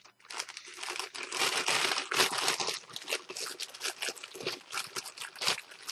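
Plastic packaging crinkling and crackling in irregular handfuls as a wrapped figure part is pulled out and unwrapped, busiest in the first couple of seconds.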